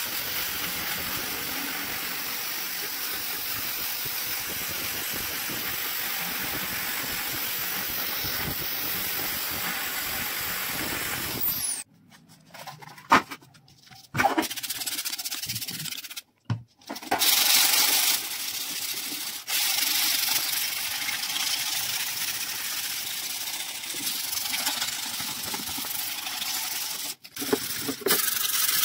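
Electric drill spinning a wire cup brush against a rusty corrugated sheet-metal heater reflector, a steady harsh scrubbing whirr as the rust is stripped off. It stops about twelve seconds in, comes back in a few short bursts, then runs steadily again with brief breaks.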